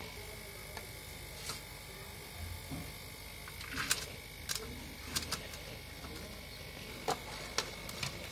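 A few scattered clinks and knocks of a bowl and a steel ladle against steel cooking pots as cooked rice and potato curry are scooped, the loudest about four seconds in, over a steady faint high whine.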